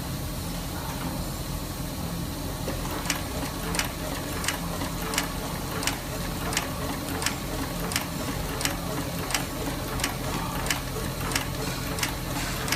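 LX-836 outsole stitching machine sewing a leather sandal sole: a steady low hum with a sharp, regular click about every three-quarters of a second, starting about three seconds in.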